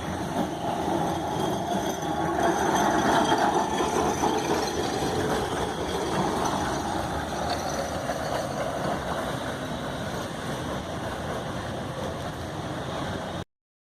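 Electric tram running along its street tracks, a steady rumbling noise of wheels and motor that cuts off suddenly near the end.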